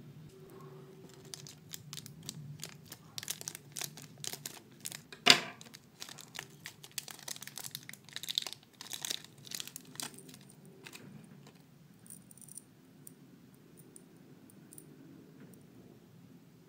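Thin clear plastic bag crinkling and tearing as it is pulled open by hand: a run of sharp crackles with one loud snap about five seconds in, growing sparse after about eleven seconds.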